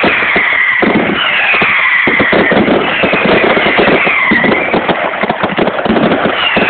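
Fireworks display going off in dense, rapid crackling and bangs, with high whistles that slide down in pitch every second or so.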